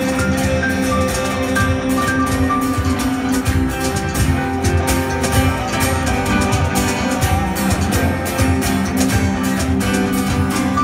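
Live band playing an instrumental passage: acoustic and electric guitars, bass guitar and keyboard over a steady cajon beat.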